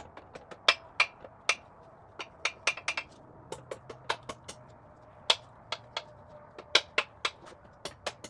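Metal engine parts being handled: a string of irregular sharp clinks and knocks as bearing caps and bolts are set down and tapped, a few of them loud, over a faint steady hum.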